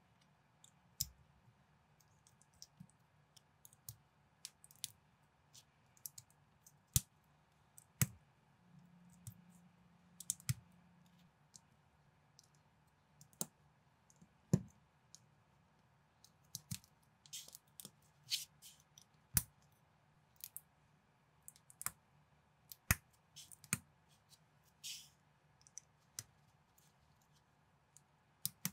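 Plastic building bricks clicking and snapping together as they are pressed onto a small build by hand: a string of short, irregular clicks, with a handful of louder snaps spread through.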